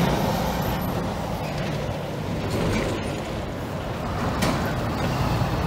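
Vehicle road noise heard from inside a car cabin: a steady low rumble, with a light knock about four and a half seconds in.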